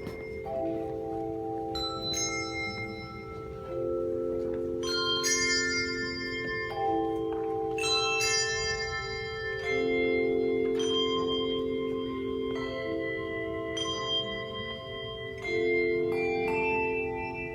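A handbell choir playing a slow piece: chords of several bells struck together every second or two, each ringing on into the next.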